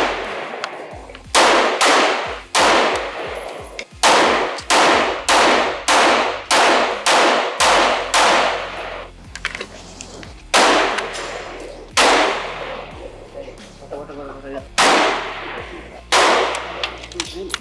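Rifle shots fired one at a time from AK-47-pattern and AR-15 rifles on a covered range firing line, each sharp crack followed by a ringing echo. The shots come in a quick run of about two a second, then slow to single shots a second or more apart.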